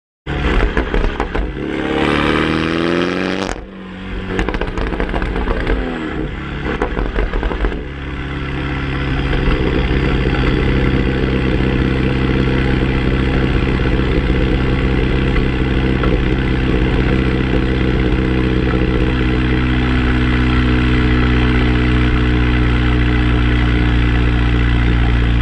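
Mini John Cooper Works exhaust with a JCW Pro exhaust and sports catalytic converter, heard at the tailpipes: the turbocharged four-cylinder engine revs up with a rising note about two seconds in, drops off suddenly, then settles into a steady exhaust note at cruise that slowly grows louder.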